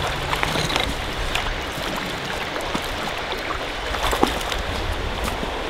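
Shallow trout creek running over stones, with small splashes at the water's surface, one a little louder about four seconds in.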